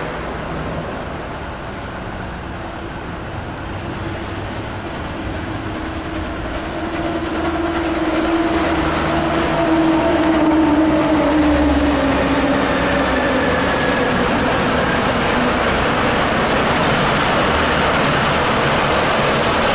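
Nickel Plate 765, a 2-8-4 Berkshire steam locomotive, approaching with a train, its rumble and steam exhaust growing louder over the second half. A long tone slowly falls in pitch near the middle.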